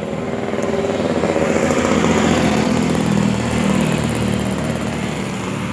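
An engine running, getting louder over the first two seconds or so and then slowly easing off.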